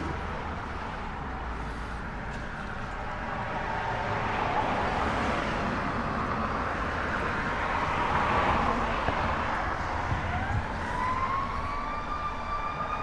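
Road traffic running steadily, swelling and easing off in the middle as a vehicle passes. About ten seconds in, an emergency-vehicle siren starts, gliding up in pitch and then holding it.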